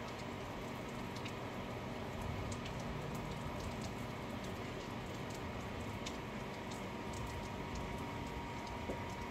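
Steady rain with scattered sharp drip ticks.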